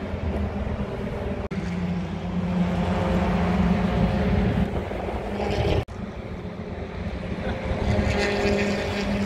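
Race car engines running on the circuit: a steady engine drone that swells and fades as cars pass. It breaks off abruptly twice, about a second and a half in and near six seconds, where the recording jumps.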